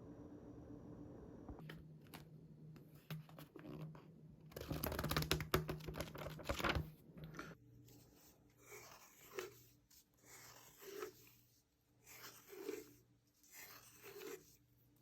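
Irregular rustling and crinkling, like something being handled close to the microphone, with a few sharp clicks. The loudest stretch comes about five to seven seconds in, followed by shorter, scattered rustles.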